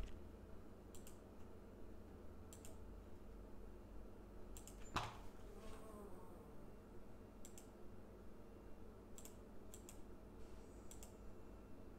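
Near silence with a faint low hum and about ten scattered soft clicks at a computer, the loudest about five seconds in.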